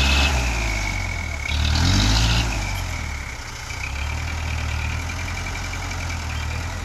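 Hino Dutro dump truck's diesel engine working under a heavy full load on soft mud. It revs up about two seconds in, then drops back to a steadier, lower run.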